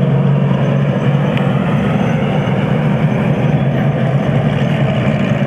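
Steady, loud rumble of vehicle engines running under load, with a low hum.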